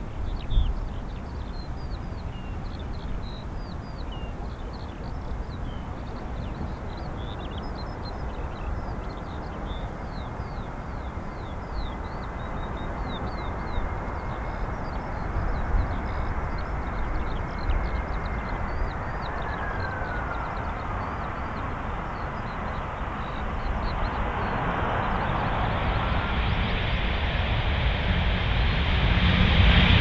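Airbus A319 jet engines on final approach and landing in strong gusty wind, with a low wind rumble on the microphone throughout. A faint engine whine falls in pitch as the airliner passes, and near the end the engine roar builds and grows louder.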